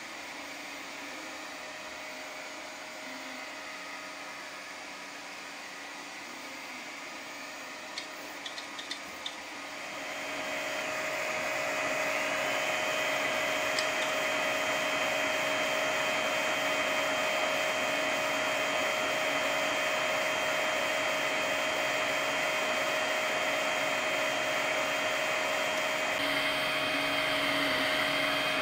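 3D printer running mid-print, its motors and print-head cooling fan making a steady mechanical hum with a constant whine. A few light clicks come just before it grows louder, about ten seconds in.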